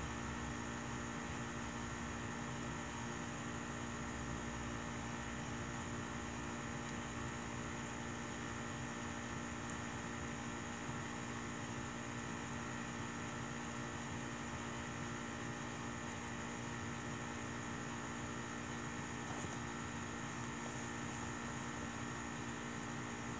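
A steady electrical hum with hiss that does not change, with a couple of faint crackles from the burning wood fire, one about ten seconds in and one near the end.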